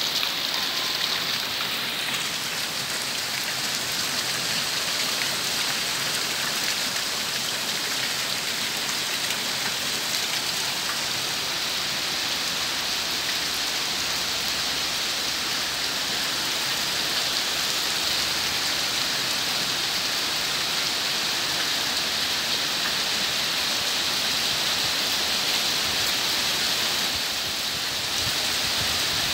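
Heavy rain falling steadily on wet ground, a constant hiss of downpour.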